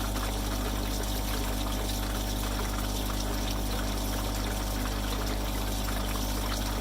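Water pouring steadily out of the opened bottom drain valve of a duck pond tank, flushing the dirty water and muck from the bottom of the tank, over a steady low hum.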